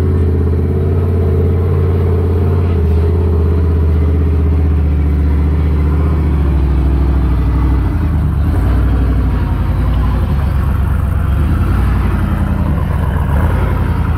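Off-road Jeep-style rock crawler's engine running close by, a steady low drone that turns rougher and more uneven about halfway through.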